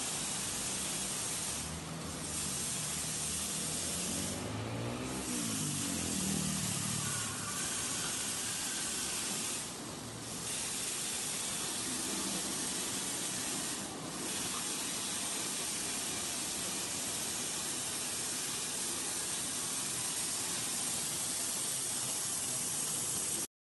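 Automatic car wash running: a steady hiss of spraying water over a low rumble from the spinning roller brushes, the hiss dipping briefly a few times. The sound cuts off suddenly near the end.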